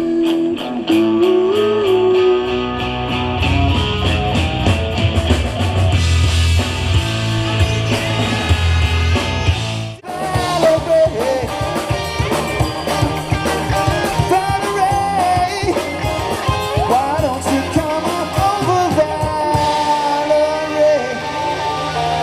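Live rock band playing loud amplified music: electric guitar, bass and drums with a steady beat, and singing. The sound cuts out for an instant about ten seconds in, then the music carries on.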